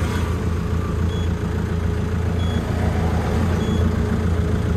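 Iseki TR633 tractor's diesel engine running steadily, with a short, high electronic beep repeating about every second and a quarter, starting about a second in.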